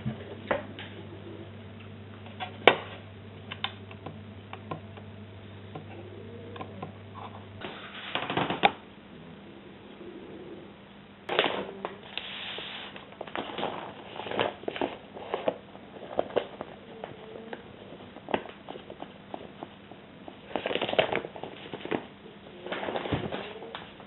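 Clicks and light knocks of a plastic box and tools being handled on a wooden tabletop, then several short bursts of rustling as dry plaster powder is tipped from a bag into a plastic tub.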